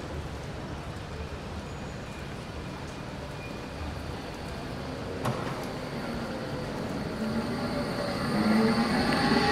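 Tram running with a steady rumble, a single sharp click about five seconds in, then from about seven seconds the whine of its electric traction drive rising in pitch and getting louder as it accelerates.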